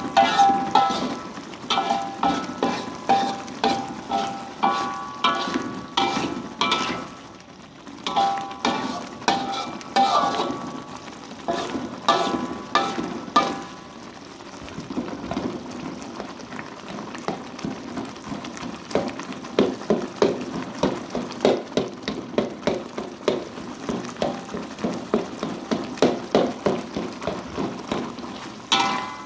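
Metal spatula striking and scraping a pan over and over during stir-frying, about two strokes a second, with frying sizzle underneath. In the first half the pan rings briefly after the strikes.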